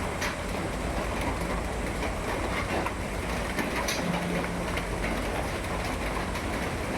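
Steady rain falling, a constant rushing noise with a low rumble under it and scattered sharp ticks of drops.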